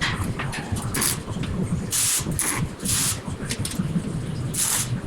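Welding arc on sheet metal, hissing and crackling in short, irregular bursts that start and stop several times a second.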